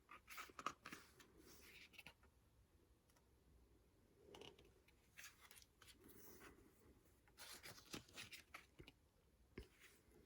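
Faint, intermittent rustling and handling of paper: the glossy pages of a photobook being turned and handled, in scattered brief bursts with near silence between them.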